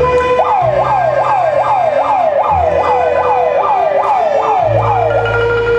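Orquesta típica playing held low bass notes and a steady sustained note, over which a siren-like tone falls in quick glides, about a dozen times in a row. The glides stop near the end while the held notes go on.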